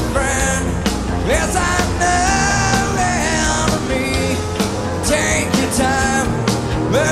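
Rock song with a singing voice over the band.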